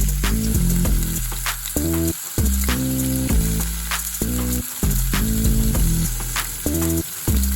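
Steak sizzling in an iron frying pan over a campfire, a steady hiss broken by frequent sharp pops of spattering fat.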